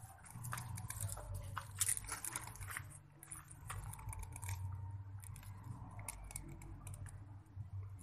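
Machete blade splitting and shaving thin bamboo sticks: a run of short crackling, crunching strokes, the sharpest about two seconds in, over a steady low hum.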